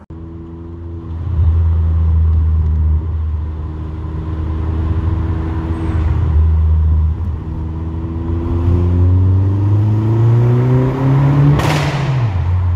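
Vauxhall Corsa VXR's turbocharged 1.6-litre four-cylinder engine under way, heard from inside the car. It pulls at fairly steady revs, then the revs climb for a few seconds near the end, and as they fall a single loud crack goes off.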